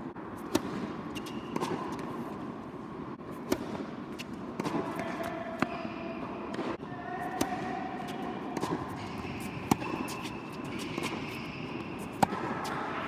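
Tennis balls struck and bounced on a hard indoor court, heard as about seven irregular sharp knocks over a steady hall background; the loudest come near the end.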